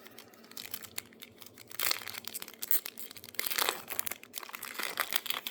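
Plastic wrapper of a baseball card pack being torn open and crinkled by hand, in uneven bursts of rustling with the loudest about two seconds in and again at about three and a half seconds.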